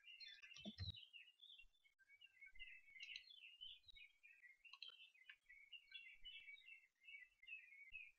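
Near silence, with faint bird chirping in the background throughout and one soft low thump a little under a second in.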